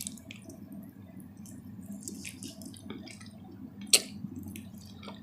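Close-miked chewing with wet lip-smacking and small mouth clicks while eating chicken. There is one sharper click about four seconds in.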